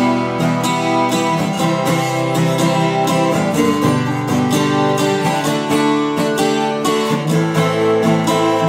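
Harley Benton CLJ412 12-string acoustic guitar strummed unplugged: a quick, even run of strummed chords, each ringing on into the next.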